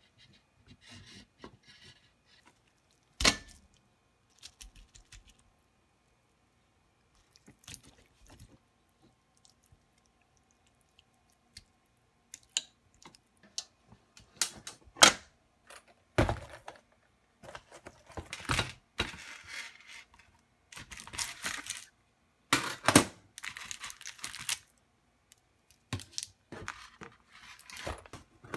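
Kitchen handling noises as meat is laid into a hot sandwich maker and the maker is closed: irregular rustling and scraping with knocks and clacks, including a sharp knock about three seconds in. The sounds come more often in the second half.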